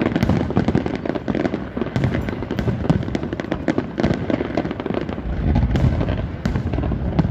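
Large fireworks display: aerial shells bursting in a rapid, unbroken string of booms and sharp crackling cracks over a continuous low rumble.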